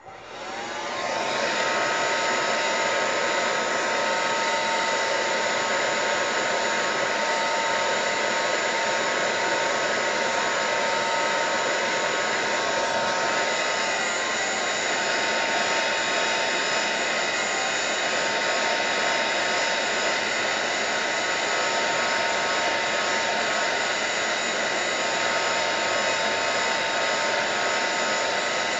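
Handheld electric dryer switched on and blowing steadily, a rushing fan noise with a steady whine over it, drying wet watercolor paint on paper. It spins up to full speed in the first second or two.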